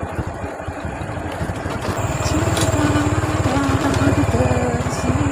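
Motorcycle engine running under way, its low pulsing beat growing louder about two seconds in as it picks up.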